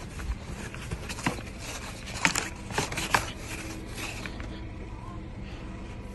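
Snow brush sweeping packed snow off a car's body in a run of quick, sharp strokes, loudest about two to three seconds in.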